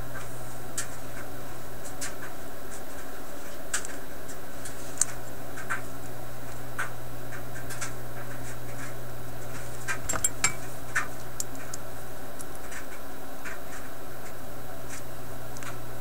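Small metal clicks and light scraping as the parts of a radio's slide power switch are handled and fitted together by hand: scattered ticks, with a quick cluster of clicks a little after ten seconds in, over a steady low hum.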